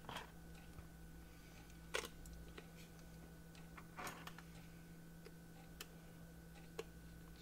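Faint clicks and light taps from handling a small plastic electrical tester and its battery or fuse cover, over a low steady hum. The clearest clicks come about two seconds in and about four seconds in.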